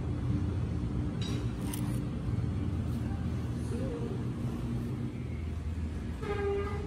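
A steady low rumble with faint voices under it. There is a brief crinkle about a second in and another soon after, and a short pitched tone near the end.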